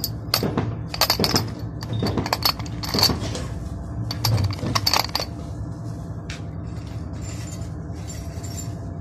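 Machined steel pistol barrels clinking and rattling against each other as a hand scoops and shuffles them in a box, in quick clusters of bright, ringing metal-on-metal clinks that stop about five seconds in. A steady low hum runs underneath.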